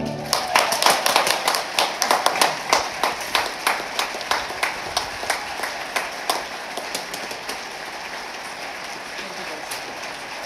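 Audience applauding, with many sharp claps close by at first that thin out and fade over the last few seconds.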